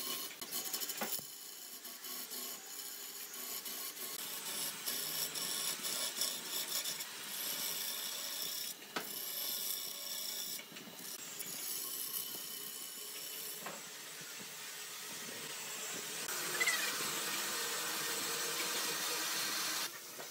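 Wood lathe with a turning tool rasping against the spinning wood, in several stretches that change abruptly from one to the next.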